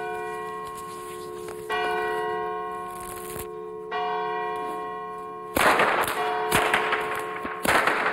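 A church bell tolling, struck about every two seconds, its ringing dying away between strokes. From about five and a half seconds in, a long rope whip is cracked over it in loud, quick, sharp cracks.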